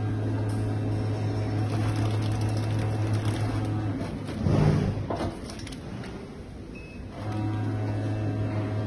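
DZD-220B vertical powder-packing machine working through its cycle: a steady electric hum runs for about four seconds and stops with a brief, louder mechanical noise. It stays quieter for a couple of seconds, then the hum starts again near the end.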